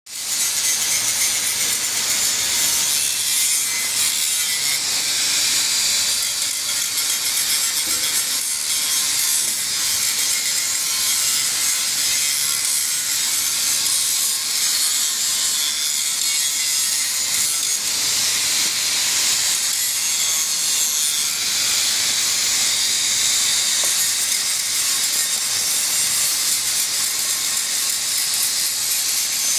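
Welding arc burning continuously on a steel pipe joint: a steady, even hiss mostly in the upper range.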